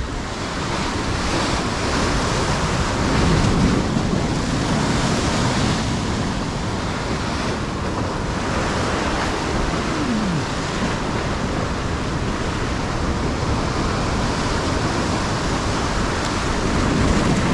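Sea waves washing and breaking against a rocky shore, a steady rush of surf that swells a little a few seconds in, with wind on the microphone.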